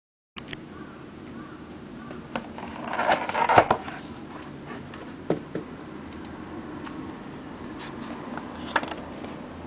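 Handling noises: scattered clicks and light knocks, with a louder flurry of rustling and scraping about three seconds in, over a low steady hum.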